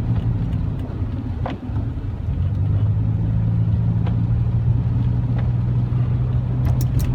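Car engine and road noise heard from inside the cabin while driving: a steady low hum. It dips briefly about a second and a half in, then the engine note holds steady.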